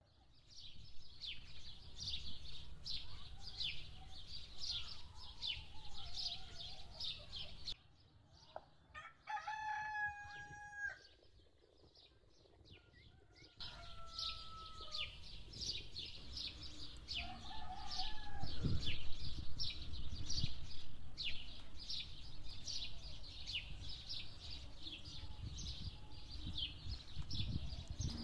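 A rooster crows, once about eight seconds in and again a little later, over a steady run of quick high chirping, about two or three chirps a second. The chirping drops out during the first crow.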